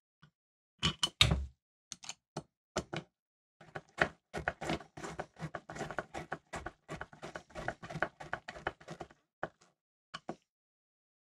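Small cooling fan being fitted to an aluminium heatsink and screwed down with a screwdriver: a few sharp knocks near the start, then about five seconds of quick, irregular clicking.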